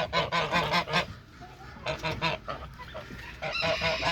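Domestic waterfowl calling: a quick run of short calls in the first second, then more calls around the middle and toward the end.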